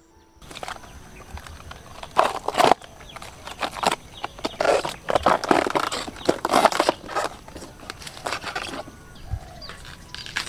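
Layers of a banana plant's stem being peeled apart by hand: crisp tearing and snapping in irregular spells that stop shortly before the end.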